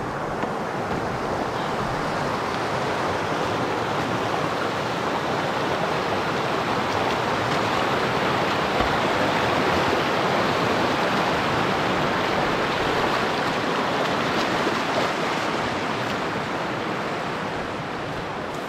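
Rushing water of a shallow, rocky mountain stream: a steady hiss of water over stones that swells a little toward the middle and eases off near the end.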